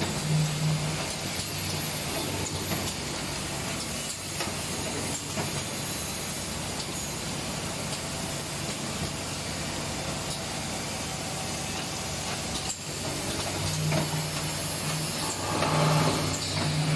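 Essential-oil bottle filling and capping machine line running: a steady mechanical hiss and rattle from the conveyor and machine, over a low hum. The hum pulses on and off in short blocks at the very start and again over the last few seconds.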